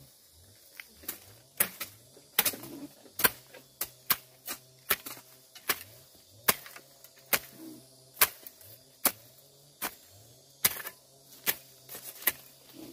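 A tool striking again and again, in sharp, evenly spaced blows a little more than once a second.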